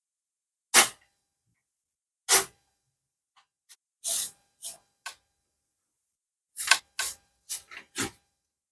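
Sheets of paper being torn, a series of short separate rips with silence between them: single rips at first, then a quick run of four or five near the end.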